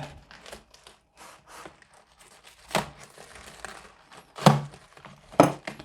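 Parcel packaging being struggled open by hand: plastic and bubble wrap crinkling and tearing, with three louder sharp rips or knocks in the second half.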